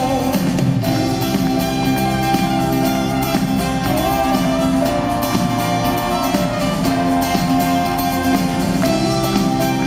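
Unplugged rock band playing an instrumental passage on acoustic instruments, with guitar prominent.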